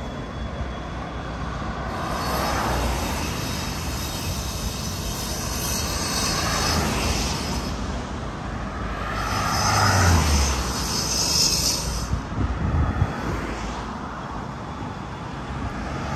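Steady outdoor rush of passing traffic. It swells twice: once in the first half, and again, loudest and with a low rumble, about two-thirds of the way through.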